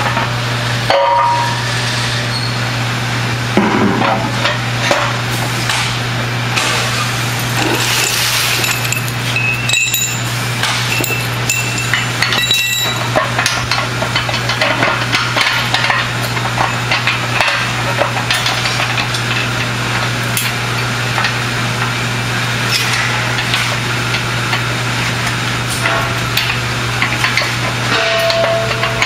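Aluminium platform sections knocking and clinking as they are handled and pinned together by hand: scattered metal clicks and knocks with a few short ringing tones, over a steady low hum.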